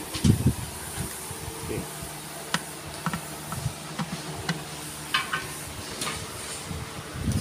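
Scattered light clicks and knocks of hands gripping and twisting the plastic housing of a jacuzzi blower as it is taken apart, over a steady low hum.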